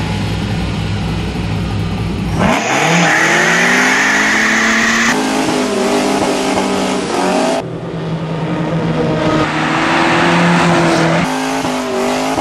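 Car engine idling with a low rumble, then about two and a half seconds in revving up and accelerating hard through the gears, the pitch climbing and dropping back at each of three shifts, as in a street race.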